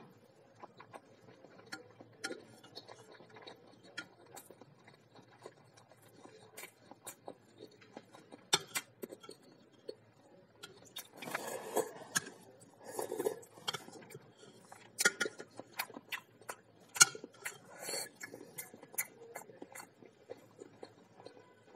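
Close-up eating sounds: a person chewing and swallowing a boiled egg, with scattered sharp clicks of a metal spoon against the bowl. The chewing is busiest about halfway through and again later on.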